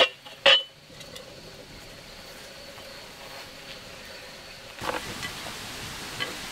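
Steel cauldron lid clinking twice against the pot in the first second, each clink ringing briefly. Then a steady high insect drone, with a few faint clicks near the end.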